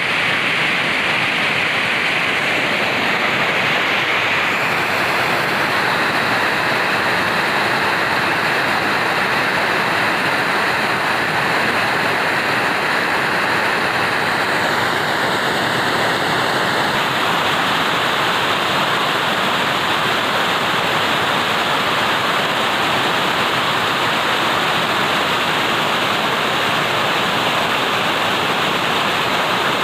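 Rushing water, a steady loud wash like a small waterfall or fast stream.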